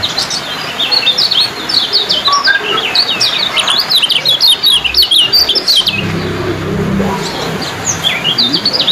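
Kecial kuning (yellow white-eye) singing its fast 'ciak' song: a rapid run of sharp, high chirps that breaks off about six seconds in and starts again near the end.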